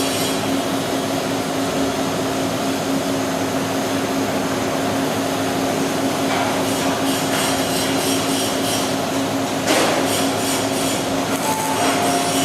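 Tire packing machine running with a steady motor hum and mechanical noise, one sharp knock about ten seconds in, and brief squealing tones near the end.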